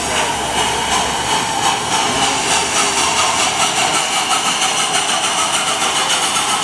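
Durango & Silverton K-36 steam locomotive No. 481 standing under steam: a steady hiss and mechanical running noise with a fast, even pulse.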